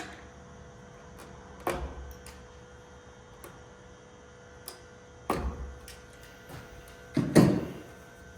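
Clicks and knocks of hand tools and wire being handled during switch wiring. Three louder knocks come about 2, 5 and 7 seconds in, the last the loudest, with lighter ticks between.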